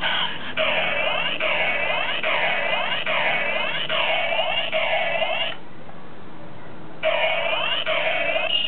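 Kamen Rider OOO DX toy belt (OOO Driver) playing an electronic sound effect through its small speaker: a short pattern of falling chirps repeating a little under once a second. It breaks off about five and a half seconds in and starts again near the end.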